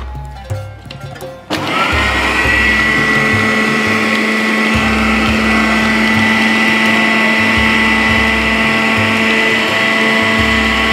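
Electric food chopper grinding biscuits to crumbs. Its motor drops out briefly at the start, starts again about a second and a half in, then runs steadily.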